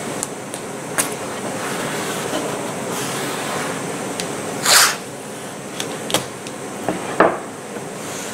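Steady fan-like shop background noise, with a few light knocks and one short rustle about five seconds in as painter's tape and small wooden parts are handled on the CNC table.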